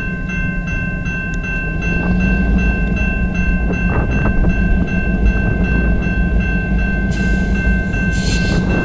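Railroad crossing bell ringing steadily over the low rumble of a pair of EMD GP38-2 diesel locomotives with two-stroke V16 engines, moving slowly to couple onto a boxcar. Short bursts of hiss come near the end.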